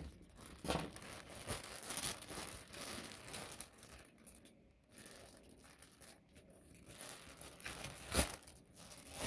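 Thin clear plastic bag around a plush toy crinkling and crackling in irregular bursts as hands grip and pull at it, with a sharper, louder crackle near the end.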